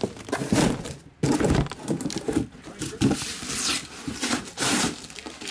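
Shrink-wrapped trading-card hobby boxes being handled out of a cardboard shipping case: irregular rustling, crinkling and scraping of cardboard and plastic wrap, with a few knocks as boxes are set down.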